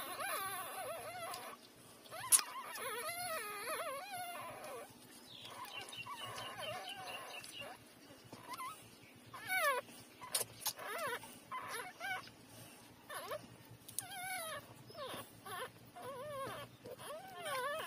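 Three-day-old puppies whimpering and squeaking while nursing: a string of short, wavering high cries that rise and fall in pitch. A sharp click about two seconds in.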